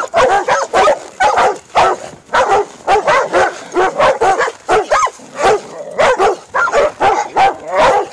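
Catahoula dogs baying at a cow: a close string of barks and yips, about two to three a second, as the dogs hold the cow in place.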